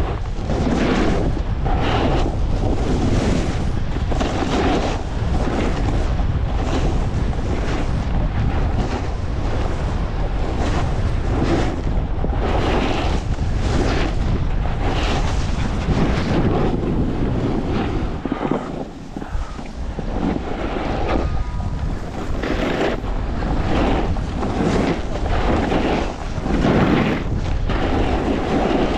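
Wind rushing over the microphone of a snowboarder's helmet or chest camera at speed, mixed with the board's edge scraping across packed snow. It swells and eases every second or two as turns are linked, and dips briefly about two-thirds of the way through.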